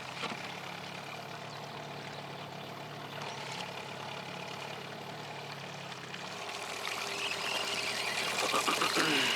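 Small outboard motor running steadily at low trolling speed, a low even hum. About two-thirds of the way through its low note shifts and the sound grows louder.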